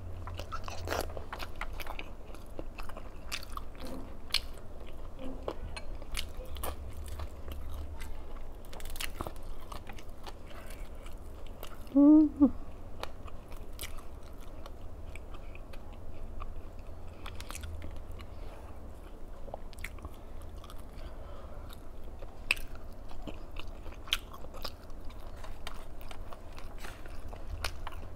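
A person chewing and biting food, with many small wet clicks and crunches. A brief hummed vocal sound comes about twelve seconds in.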